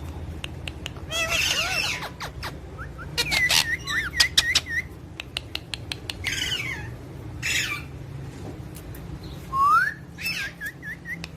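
Parrot calling: harsh squawks, sharp clicks and short whistles that bend up and down, with one clear rising whistle near the end.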